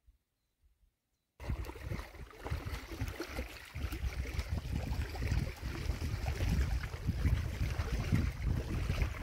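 Wind buffeting the microphone: a gusty, uneven rumble that starts abruptly about a second and a half in, after near silence.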